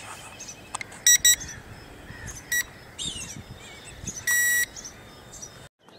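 Eachine E58 drone remote controller beeping as its buttons are pressed: two quick high beeps about a second in, a single short beep a little later, and a longer beep past the middle.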